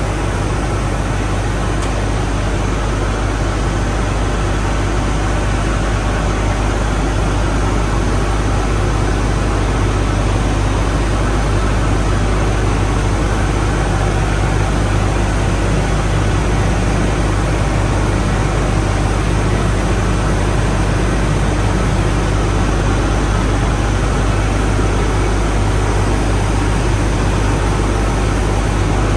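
Loud, steady machinery-and-flow noise with a strong low hum, from the circulating cooling-water filter lines of a thermal power plant's unit and the plant equipment around them, running without change.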